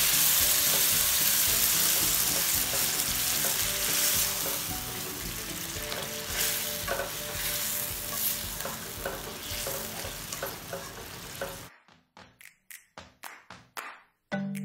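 Spice paste and vegetables frying in hot oil in a pan, sizzling loudly as water goes in; the sizzle slowly dies down. Near the end it cuts off suddenly, and a run of light quick clicks follows.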